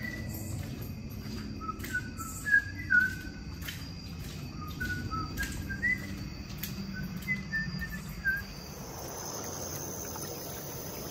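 A run of short whistled chirps at shifting pitches, some gliding up, sounding over a low rumble with scattered clicks. About nine seconds in, the chirps stop and a steady high insect trill takes over.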